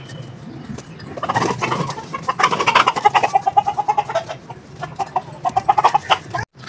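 A chicken clucking: a fast run of short, repeated notes that starts about a second in and goes on until near the end.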